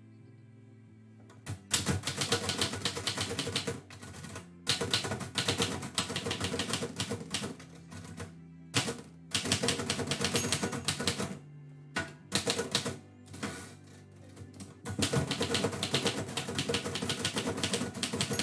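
Typewriter keys striking in fast runs of clicks, several bursts of typing a second or three long broken by short pauses, beginning about a second and a half in.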